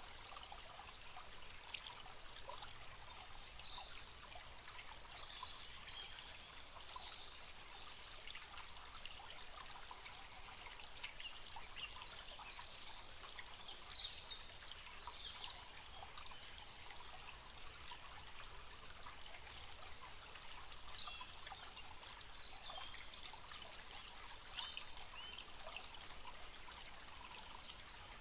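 Forest stream trickling and babbling steadily, with short, high bird chirps now and then.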